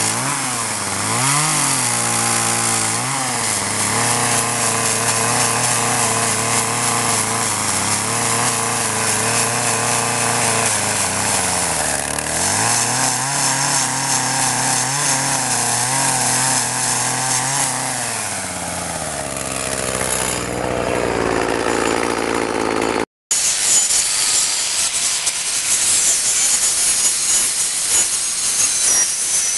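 Chainsaw cutting fine detail into wood, revving up and down at first, then running steadily with one brief dip before it slows down. After a sudden break about three-quarters of the way through, an electric angle grinder whines as it grinds the surface of the carved wood.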